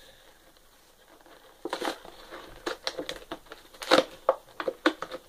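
An amiibo figure's plastic blister-and-card package being torn and pried open by hand: irregular sharp crackles and crinkles of the plastic that begin about a second and a half in and are loudest around four seconds in.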